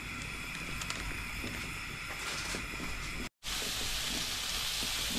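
A steady hiss that breaks off about two-thirds of the way through, followed by boneless chicken pieces sizzling in butter in a frying pan, a slightly louder, even sizzle.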